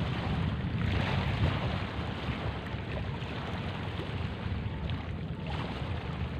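Wind buffeting the microphone in a low, uneven rumble, over small waves washing in the shallows.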